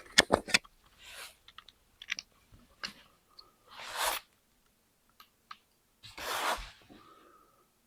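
Air rifle being handled and readied to shoot: a quick run of sharp clicks at the start, a few light ticks, then two short, soft breathy rushes.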